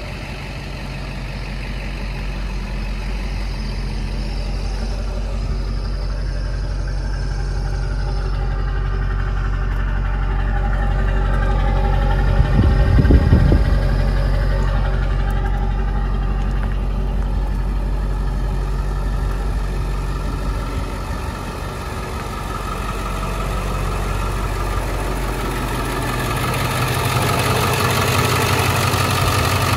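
School bus engine idling steadily. About halfway through there is a brief surge of exhaust rumble from the tailpipe, and near the end the engine runs louder and hissier, heard from the open engine bay.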